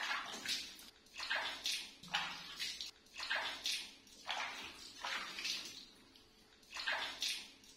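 Water splashing and dripping in short bursts about once a second, as a soaked baby monkey is rinsed and rubbed by hand over a plastic tub of water.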